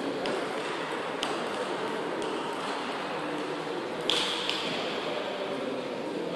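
Scattered sharp ticks of table tennis balls striking hard surfaces over a steady hall murmur, the loudest about four seconds in with a short ring.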